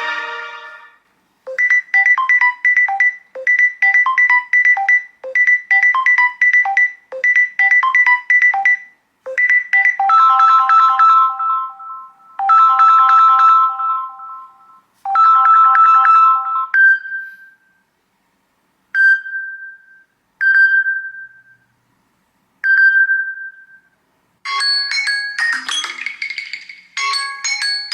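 Samsung Galaxy S24 Ultra (One UI 8.5) ringtones and tones played back to back. First comes a repeating phrase of short electronic notes, then three phrases of longer held chimes, then a single chime repeated about every second and a half, and near the end a busier, brighter tune starts.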